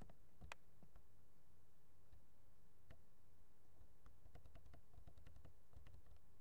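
Faint clicks from a computer's mouse or keys: a single sharper click about half a second in, then a quick run of clicks between about four and six seconds, over a steady low hum.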